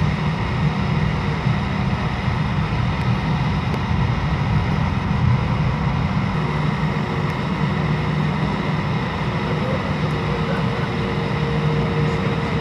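Airliner cabin noise while taxiing, with the jet engines at low thrust: a steady low rumble with a thin, constant whine above it.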